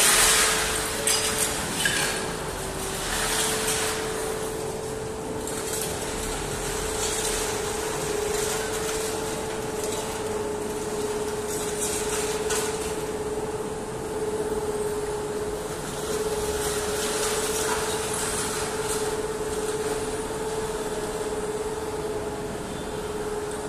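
Steel rebar mill machinery: a steady hum under a noisy factory din, with scattered clanks and rattles of scrap metal, the loudest near the start.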